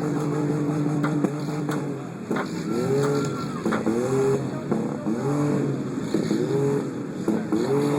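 Demolition derby cars' engines running and being revved over and over, the pitch rising and falling about once a second, with a few sharp knocks from cars hitting.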